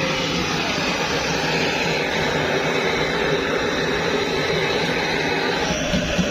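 Pressurized kerosene stove burner running with a steady, even hiss, with a few light knocks near the end.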